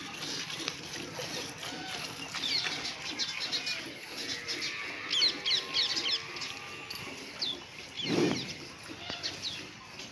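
Small birds chirping, many short quick notes, thickest a couple of seconds in and again around five to six seconds. About eight seconds in there is one short low call.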